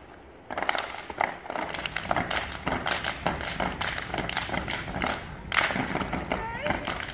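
Step team stomping and clapping in unison: a rapid run of sharp stomps and hand claps that starts about half a second in, with short shouted calls near the end.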